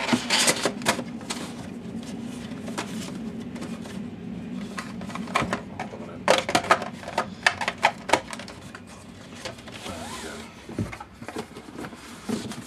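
A cardboard gadget box and its paper insert being handled: rustling with clusters of light clicks and taps, busiest about five to eight seconds in and near the end.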